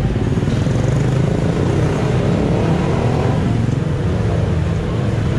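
Busy city street traffic: cars and motorcycles running past in a steady din, over a continuous low engine drone.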